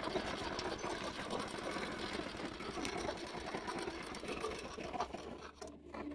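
Small motorbike engine running with a fast, even putter, dying away near the end.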